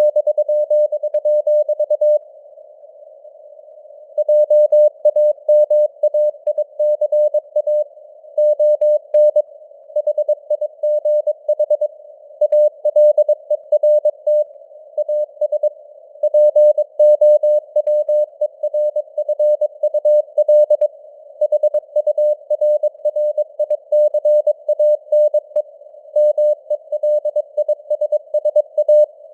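Morse code (CW) sent at 22 words per minute as a single tone of about 600 Hz, keyed in dots and dashes over a narrow band of simulated radio hiss that carries on between characters. There is a longer break in the keying about two seconds in, and short pauses between words after that.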